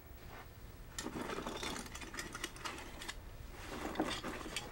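Grip gear clattering as a hand rummages through a grip case: a dense run of small clicks and rattles of clamps and metal hardware, starting about a second in.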